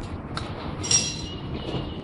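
A steady low mechanical rumble, with one sharp metallic clink that rings briefly about a second in.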